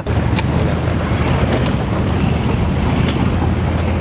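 Wind buffeting the microphone, a loud, steady rushing over a low rumble.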